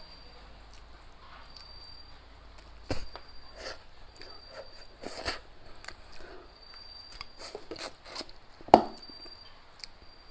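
Close-miked eating sounds: mouth noises of picking braised crucian carp off the bones, with scattered clicks of wooden chopsticks against the fish and plate. A sharp knock near the end is the loudest sound.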